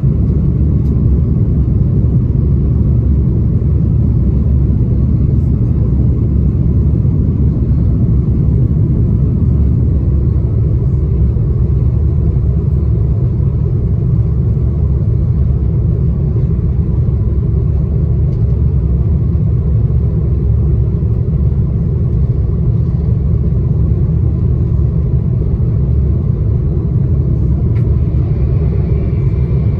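Airbus A330-300 cabin noise during climb-out after takeoff: the jet engines and the airflow make a loud, steady rumble, heard from inside the cabin. A faint steady hum joins about a third of the way in.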